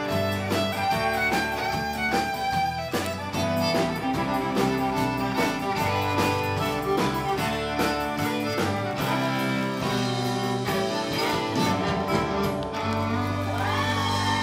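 Live country band playing an instrumental break, a fiddle taking the lead over acoustic guitar, drum kit and keyboard with a steady beat. The drums thin out near the end.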